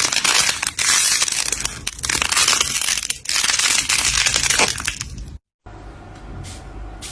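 Slime being squeezed and worked by hand, making a dense, loud crackling for about five seconds. After a brief cut, a quieter stretch of soft strokes repeats about twice a second.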